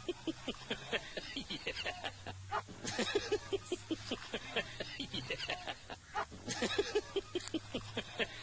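A puppy and a cat play-fighting: a fast run of short, repeated animal cries, several a second, with a few breathy hissing bursts spaced about three seconds apart.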